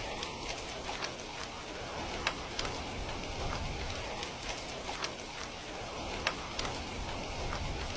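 Heavy rain falling steadily, with scattered sharp drops hitting close by.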